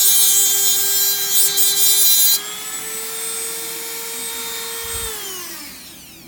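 Dremel rotary tool cutting through the cell tabs of a Li-ion battery pack. The grinding stops about two and a half seconds in and the motor speeds up a little running free, then it is switched off about five seconds in and winds down.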